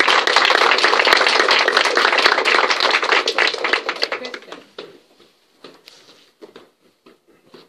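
Audience clapping, a dense patter of claps that dies away about four to five seconds in, leaving a few scattered last claps.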